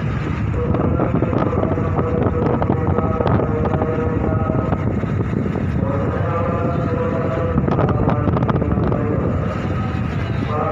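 Ferry's engines rumbling during docking, with wind buffeting the microphone and scattered knocks and rattles. A faint droning tone fades back in around the middle.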